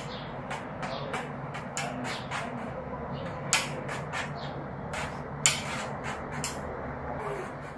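Ebru marbling brush tapped again and again to sprinkle acrylic paint onto the size in the trough: a run of light, sharp taps, about three a second, a few louder than the rest.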